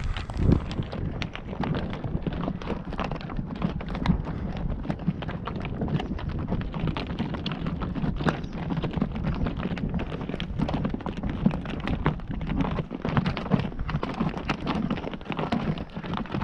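Horse hooves clip-clopping: a continuous, irregular stream of hoofbeats over a steady low noise.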